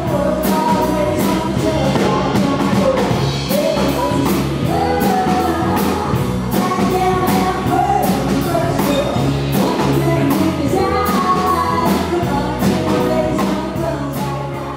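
Music with a singing voice over a steady drum beat, about two beats a second, fading near the end.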